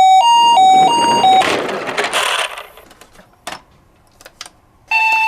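Toy ambulance minicar's electronic siren in a quick Japanese-style two-tone hi-lo pattern, cut off after about a second and a half. About a second of clattering follows, then a few sharp clicks, and near the end another toy siren starts a slower hi-lo cycle.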